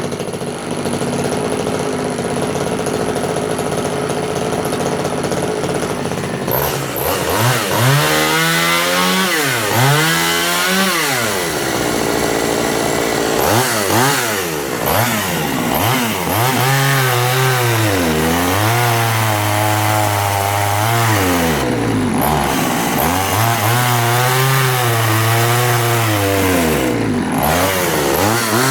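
Efco 134 top-handle two-stroke chainsaw running steadily, then cutting wood several times, its engine note dropping as the chain loads in the wood and climbing again between cuts. The saw is running lean in the cut.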